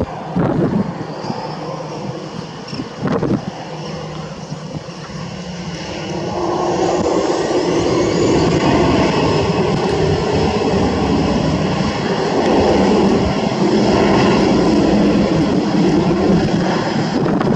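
Airbus A320 jet engines growing much louder about six seconds in, with a faint rising whine, then a steady loud rush of engine noise as the airliner passes close by. Two short sharp sounds come before it builds.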